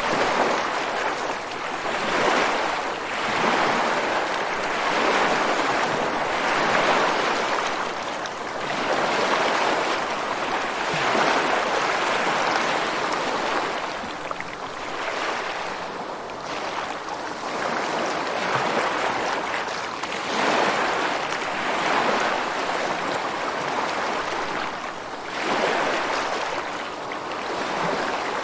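Ocean waves breaking and washing on a shore, a steady rush of surf that swells and eases every few seconds.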